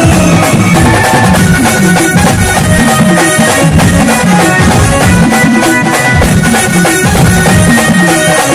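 Loud traditional festival music with drums playing continuously.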